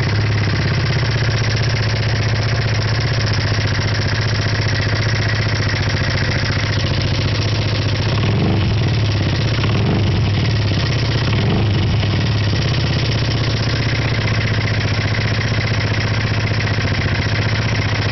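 Honda PCX (first-generation JF28) 125 cc single-cylinder scooter engine idling with a fast, steady rattling clatter from inside the engine, an abnormal noise. The engine speed rises slightly for a few seconds around the middle.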